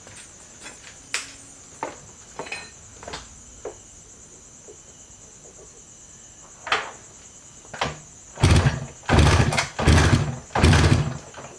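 Light clicks and knocks as the Yamaha RD350 is handled. About eight seconds in, its two-stroke parallel-twin engine is kicked over and fires in four short, loud bursts without yet running steadily.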